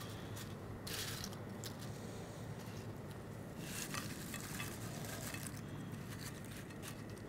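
Crisp fried fattoush bread pieces rustling and clattering as they are tipped from a ceramic bowl and laid around the edge of a plate, in short bursts about a second in and again around four seconds in, over a steady low hum.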